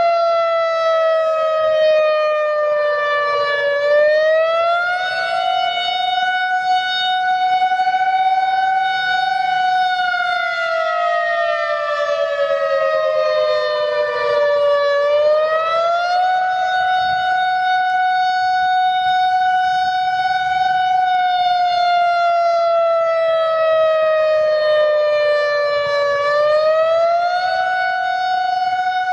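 Outdoor civil defense warning siren sounding the attack signal, a wailing tone that rises and falls. Each cycle the pitch slides down over about four seconds, climbs back in about a second and holds for about five seconds, three times over.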